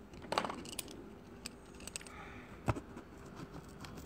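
Quiet room with a few scattered short clicks and taps, the sharpest about two-thirds of the way through.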